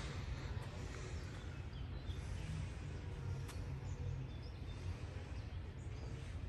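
Outdoor ambience: a steady low rumble with a few faint bird chirps and a single sharp click about halfway through.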